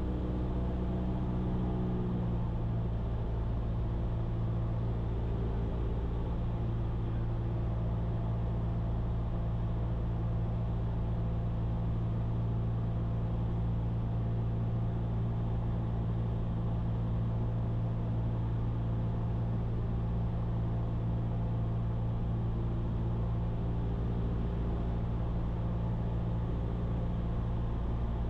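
Cessna 172's piston engine and propeller droning steadily in flight, a constant low hum with no change in power.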